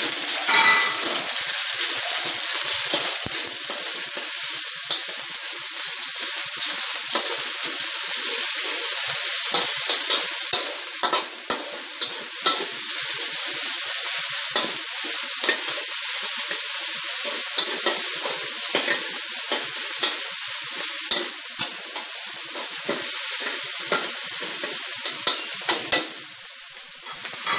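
Minced pork and chopped garlic sizzling in hot oil in a wok, with a metal spatula scraping and tapping against the pan as it is stir-fried. The sizzle dips briefly near the end.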